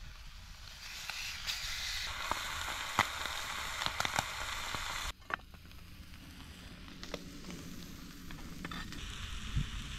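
Flatbreads frying in oil in a cast iron skillet over campfire embers: a steady sizzle with scattered pops and crackles. About five seconds in it cuts off abruptly to a fainter sizzle.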